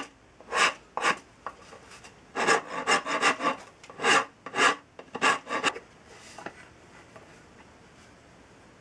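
Hand rasp scraping across the end of an ash axe handle, shaping it down to fit the axe head's eye. About a dozen short strokes come in quick runs, then they stop about six seconds in.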